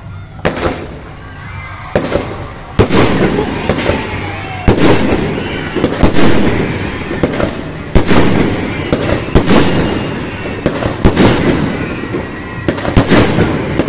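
Fireworks display: aerial shells bursting in a rapid series of loud bangs, more than a dozen, with dense crackling noise between them.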